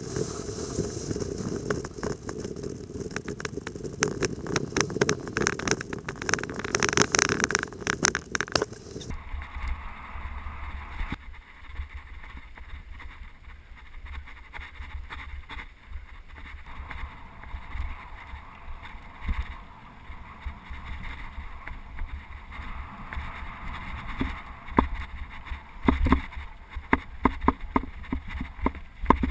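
Mountain bike ridden along a dirt trail, heard from a camera on the bike or rider: tyre and trail rumble with frequent rattling clicks and knocks. The sound changes abruptly about a third of the way in.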